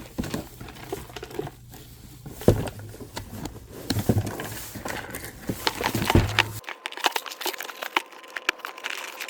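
Rustling and crinkling of packaging and boxes being handled, with scattered light clicks and knocks as items are moved about.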